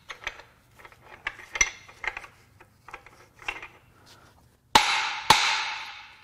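Light metal clinks as a connecting rod is worked by hand in the bare bottom end of a VW 2.0 TSI EA888 engine. Near the end come two hammer blows on the engine's metal, about half a second apart, each ringing out, struck to free a stuck rod and crank.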